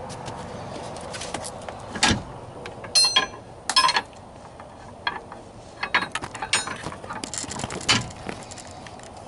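Metal clinks and knocks of bolts and hand tools being handled while fitting a swivel seat base. A few sharp ringing clinks come around three to four seconds in, followed by a run of smaller clicks and knocks.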